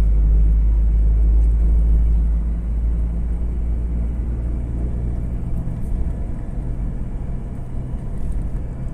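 Steady deep rumble of a moving car heard from inside the cabin: road and engine noise, a little louder in the first couple of seconds.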